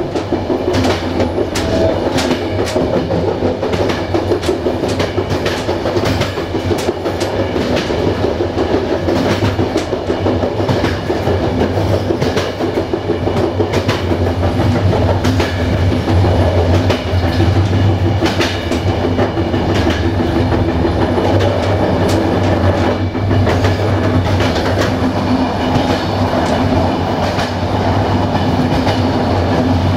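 Passenger train coach running along the track, its wheels clicking over rail joints with a steady rolling rumble underneath.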